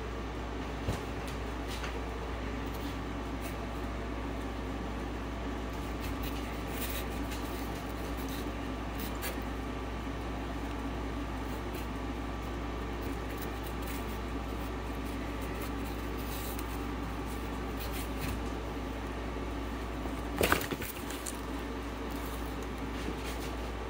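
Steady background hum with scattered faint clicks and rustles, and one short, louder handling noise about twenty seconds in.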